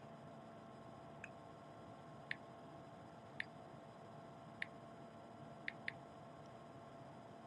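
Faint, sharp clicks of tapping on a smartphone, six in all, about a second apart with two in quick succession near the end, over a quiet room hum.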